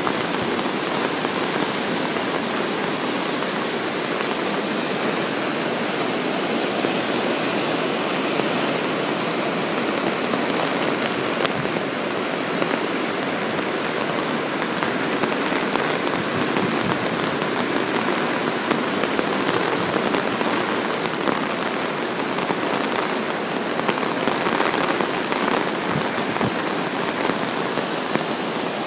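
Flood-swollen creek rushing and churning as whitewater through a concrete channel and down a spillway under a road bridge: a steady, loud rush of water.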